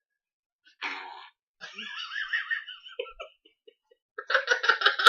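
Fart sound effects from a soundboard. A short blurt comes about a second in, then a sound wavering up and down in pitch, and from about four seconds in a rapid fluttering one.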